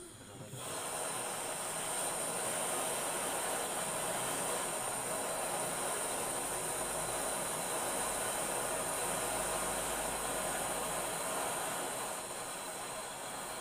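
Handheld gas torch burning with a steady hiss, coming on suddenly about half a second in, as it heats a copper refrigerant pipe joint on an AC compressor for brazing.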